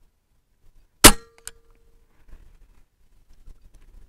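Evanix Cloud Ultra .25 semi-automatic PCP air rifle firing a single shot about a second in: a sharp crack with a short ringing tone after it, followed by a fainter click.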